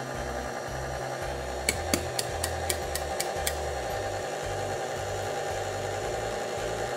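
KitchenAid stand mixer running steadily, its beater working flour into a thickening sugar-cookie dough in a steel bowl, with a quick run of sharp clicks about two seconds in.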